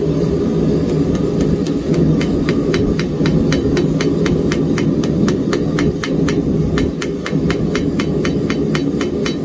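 Rapid light hammer taps on hot folded flat steel on an anvil, roughly four a second, starting about a second and a half in. They are setting a forge weld in borax-fluxed stock at welding heat. Under them is the steady rushing of a gas forge burner run hot at about 28 PSI.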